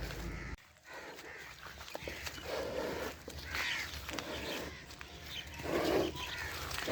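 Several short animal calls, the two loudest about two and a half and six seconds in, with a higher-pitched call between them.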